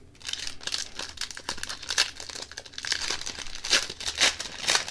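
A hockey card pack's wrapper crinkling and tearing as it is opened, with a few sharper crackles near the end.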